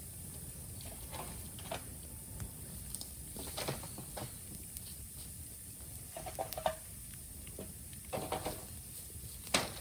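Raw green bamboo burning in a bonfire: a low steady hiss with scattered crackles and a few short squeaky, sizzling bursts, then a sharp pop near the end. The squeaks and sizzles come from the moisture in the unseasoned bamboo, which keeps it from burning well.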